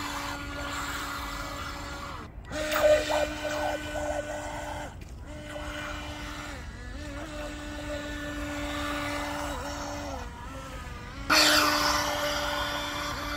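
Small electric motor of a remote-controlled mallard-decoy boat whining at a steady pitch as it speeds across the water, with the hiss and splash of its wake. The whine cuts out a few times, sags in pitch briefly, and is loudest near the end.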